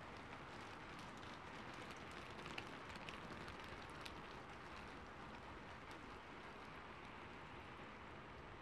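Rain falling on a rooftop, played as an ambience recording: a faint, steady hiss of rain with scattered single drops ticking, a few of them louder about two to four seconds in.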